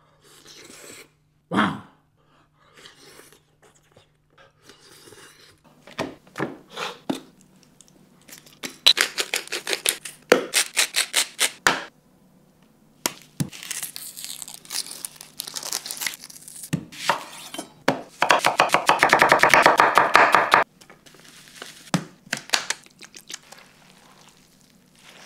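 Close-miked food sounds: a bite into a grilled scallop about two seconds in, then raw minced meat being worked by hand, with an egg cracked over it and gloved hands squishing and kneading the mince with breadcrumbs, onion and egg yolks. The meat sounds come as scattered wet clicks and crackles, with a long run of rapid clicks about three quarters of the way through.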